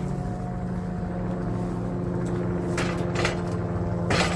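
Wood-Mizer LT70 sawmill engine running steadily while the log is worked forward on the mill. Two short noisy bursts come about three seconds in, and a louder one near the end.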